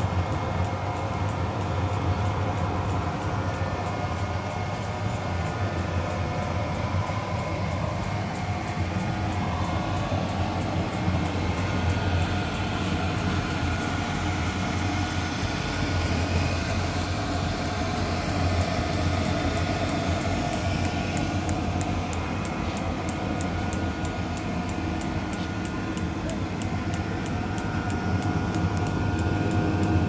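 Eberspächer BA6 gasoline heater from a VW Bus running on a bench, giving a steady whirring hum with a deep low drone. A fine, fast ticking joins about two-thirds of the way through.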